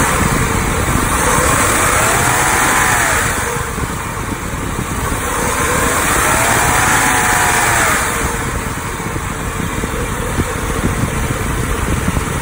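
2011 BMW 535i's turbocharged straight-six engine running with its belt drive, revved twice, the pitch rising and falling each time over a steady hum.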